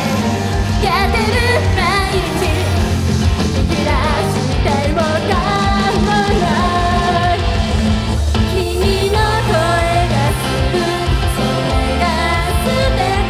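Upbeat Japanese idol pop song performed live: young women's voices sing the melody into handheld microphones over loud backing music with a steady beat and heavy bass.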